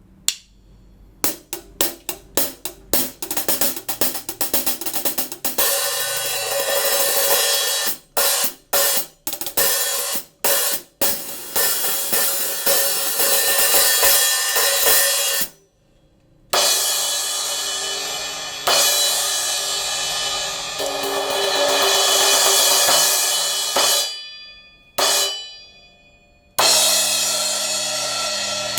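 Kingdo SN8 B8 bronze cymbals being played one at a time. First comes a quick run of short hi-hat strokes. Then larger cymbals are struck and left to ring in a bright wash, with several strokes cut off short.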